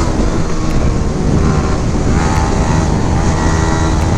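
Sport motorcycle riding at speed, its engine running steadily under heavy wind buffeting on the microphone.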